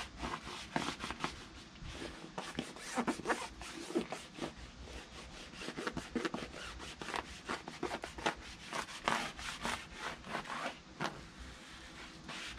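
Hard side of a sponge scrubbing a truck tire's rubber sidewall in quick, irregular strokes, working in tire shine.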